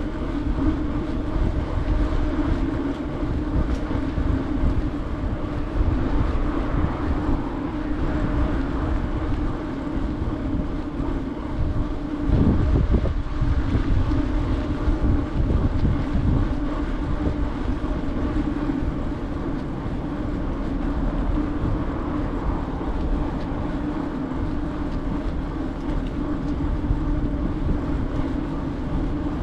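Steady riding noise of a bicycle on a paved path: a continuous hum and rumble from the tyres and frame, with wind buffeting the microphone, briefly louder about twelve seconds in.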